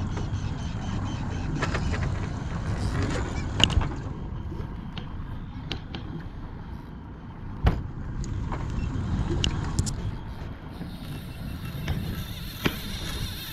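Boat engine running steadily, a low rumble, with three sharp knocks spread through.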